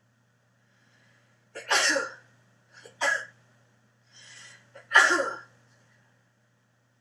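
A woman sneezing three times in quick succession, the last sneeze the loudest, with a sharp breath drawn in just before it.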